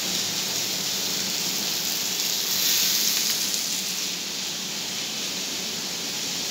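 Chicken pieces sizzling on a steel plate on the stove: a steady frying hiss that swells a little about halfway through, over a faint low steady hum.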